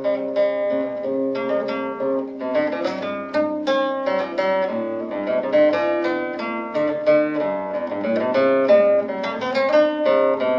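Background music played on a plucked string instrument, a steady stream of quick notes over lower ringing notes.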